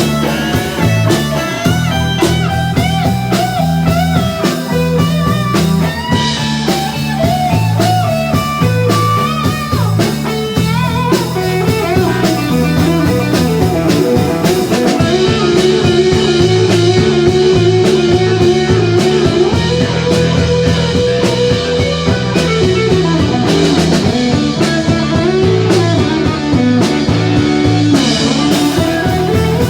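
Blues-rock music: a guitar plays a lead line full of bent notes, holding one long note in the middle, over a steady drum kit and bass.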